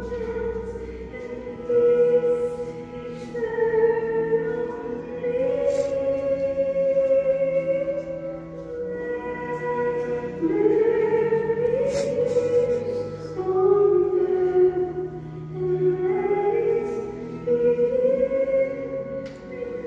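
Slow sacred music with singing: a melody of long held notes that moves up and down in steps.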